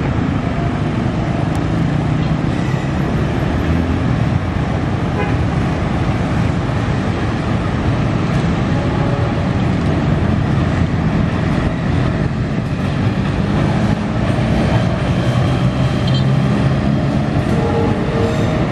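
Diesel locomotive hauling a local passenger train, its engine rumbling steadily as it approaches, over steady road traffic noise from the street beside the line.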